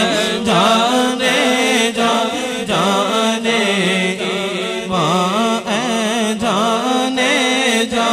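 Unaccompanied Urdu devotional naat sung by a man into a microphone: long, wavering melismatic notes on the refrain, with a steady low drone underneath.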